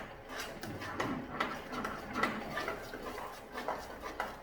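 A spoon stirring thick plantain porridge in a pot, with repeated irregular knocks and scrapes against the pot.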